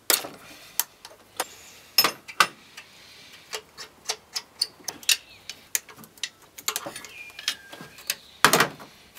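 Scattered sharp metallic clicks and clinks of a ratchet and spanner undoing the nuts on a starter motor's wire terminals, with the loudest clink near the end.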